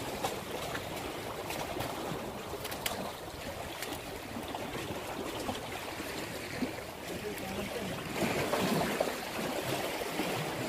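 Sea water washing and lapping against shoreline rocks, a steady wash with a few faint clicks about two to three seconds in.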